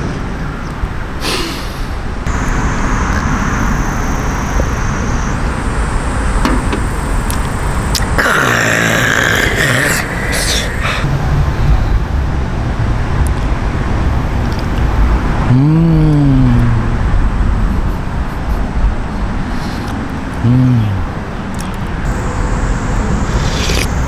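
Steady low rumbling background noise, with two short rising-and-falling hums about two-thirds and five-sixths of the way in.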